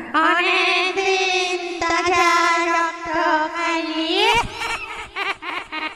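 Eerie wordless female vocal, a long held note with vibrato that glides upward about four seconds in, then breaks into short rising notes with a few sharp clicks, as in a horror theme.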